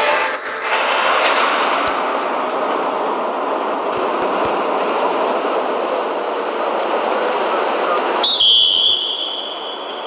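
Steady arena crowd noise. About eight seconds in, a referee's whistle gives one shrill blast lasting under a second, starting the bout.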